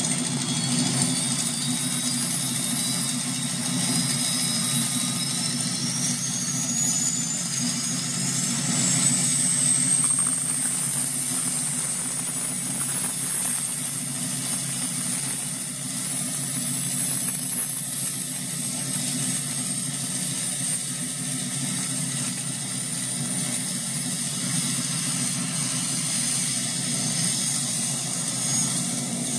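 Toy space shuttle's built-in electronic jet-engine sound effect, played through its small speaker: a high whine rises in pitch over the first twelve seconds or so as the engine spools up, then holds steady over a low rumble.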